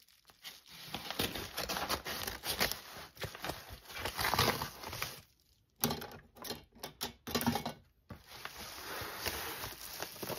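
A padded paper mailer being cut open, with dense crinkling and crackling of the stiff paper and short breaks about five and eight seconds in.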